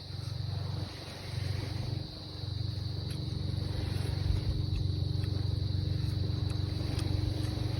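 A steady low mechanical hum, like a running engine or motor, that drops briefly twice in the first two seconds, with a faint steady high whine above it.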